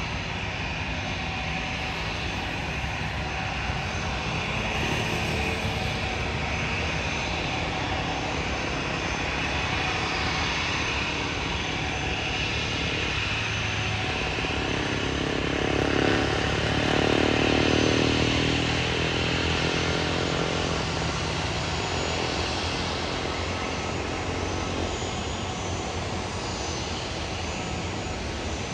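Airliner's engines at takeoff power: a steady rushing engine noise that swells to its loudest about sixteen to nineteen seconds in as the aircraft passes, its pitch falling, then eases off.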